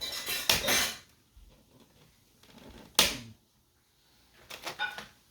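Plastic switch wall plate and dimmer being worked by hand: a scraping rustle, one sharp plastic click about three seconds in, then a few light clicks near the end.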